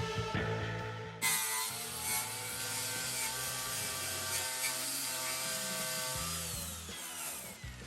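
Angle grinder fitted with a wire brush wheel starts suddenly about a second in and runs against rusty steel with a hissing whine. Near the end its whine falls in pitch as it winds down, with background music underneath.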